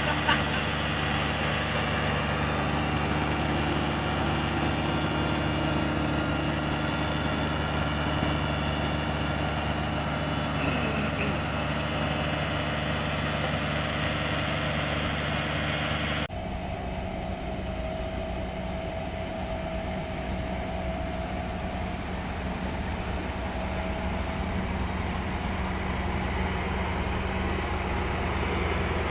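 Heavy road-construction machinery running steadily with a low engine drone, cutting abruptly about halfway through to a different machine's steady engine sound.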